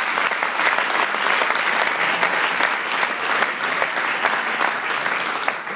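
Audience applauding: dense, steady clapping from a seated crowd that begins to thin out near the end.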